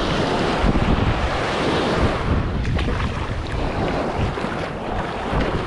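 Wind buffeting the microphone over breaking surf, a steady rushing noise.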